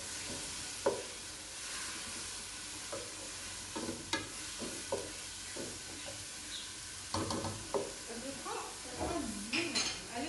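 Vegetables and meat sizzling in a hot nonstick pot while a wooden spatula stirs them: a steady frying hiss with scattered knocks and scrapes of the spatula against the pot.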